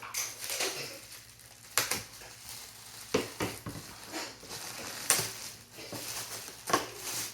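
Plastic packaging being handled and unwrapped: a crinkling rustle with four sharp clacks spread through it.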